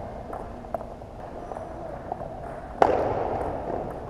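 Table tennis ball and paddles: a few faint ball ticks, then a sharp loud knock nearly three seconds in that rings on in the large gym hall.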